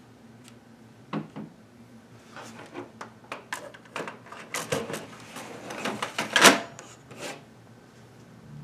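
Plastic paper tray of a Canon Pixma MG7120 printer being slid into the printer: a run of plastic clicks and short scrapes, with the loudest knock about six and a half seconds in as it seats. A faint steady low hum underneath.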